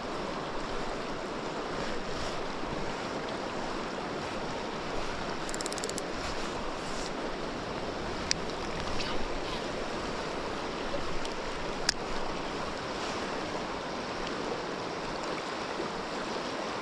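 Steady rush of a fast-flowing river. There are a few sharp clicks, including a quick run of ticks about five and a half seconds in and single clicks around eight and twelve seconds in.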